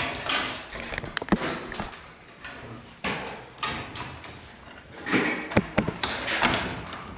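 Scattered knocks, clanks and sharp clicks of hands and tools working on garage door hardware. There are a couple of sharp clicks about a second in and a cluster of knocks around five to six seconds in.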